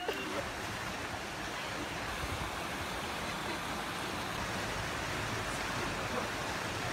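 Steady rushing of water from a rocky woodland stream.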